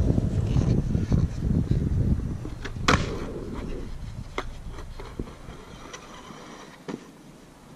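Skateboard wheels rolling on concrete, then a sharp clack of a board about three seconds in. After that the rolling fades and a few faint clacks follow.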